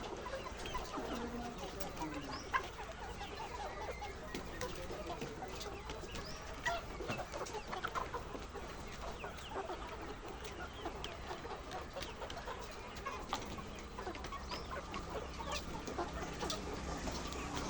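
A large flock of laying hens clucking and calling together, many short overlapping calls in a steady chatter.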